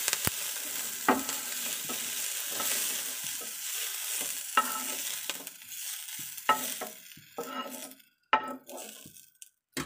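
Green chillies sizzling in hot oil in a frying pan while a wooden spatula scrapes and knocks against the pan, lifting them out. The sizzle dies away near the end as the pan is emptied.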